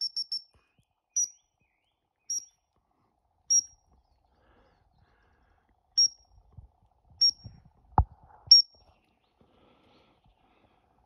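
Short, high single toots on a dog-training whistle, six of them about a second apart, at one fixed pitch; a quick run of toots is just ending as it begins. A single thump comes about eight seconds in, with some low rustling around it.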